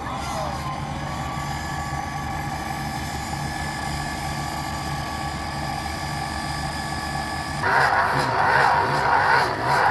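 Hydraulic rail weld shear running with a steady engine hum and a constant pump whine. About three-quarters of the way through it starts shearing the excess metal off the fresh thermite weld: a sudden, much louder rough scraping.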